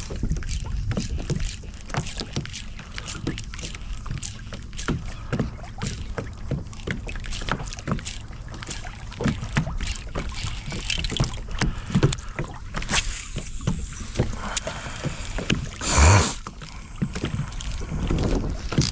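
Wind buffeting the microphone over small waves lapping against the hull of a small fishing boat, with irregular light knocks and splashes. There is a louder brief whoosh about sixteen seconds in.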